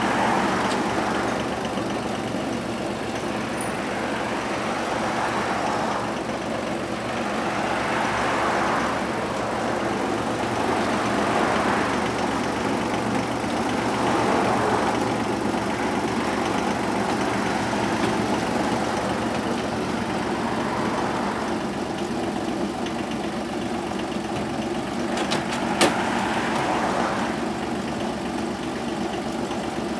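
Kawasaki Mule 3010's three-cylinder diesel engine idling steadily. A hiss swells and fades every three seconds or so, and a single sharp click comes near the end.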